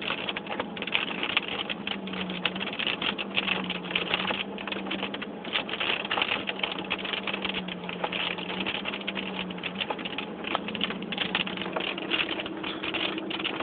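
Rain and road water pattering fast against a moving car, heard from inside the cabin, over a steady low engine hum.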